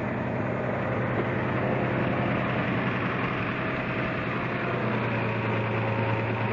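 Toyota 4Runner engine idling steadily, with the knock that a dealership said might be rod knock.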